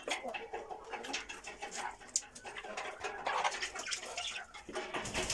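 Domestic chickens clucking in a coop: short, irregular calls mixed with scattered clicks.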